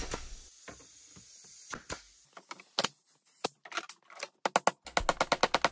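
Hand tools being handled on a wooden workbench: scattered sharp clicks and knocks, then from about five seconds in a fast run of clicks, roughly ten a second.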